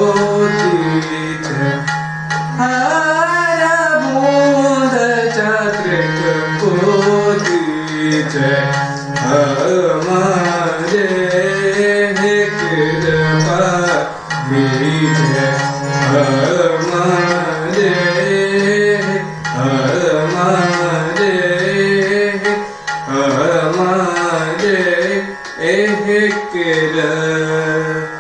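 Indian classical singing, with a melodic line that glides and ornaments over a steady drone, accompanied by tabla.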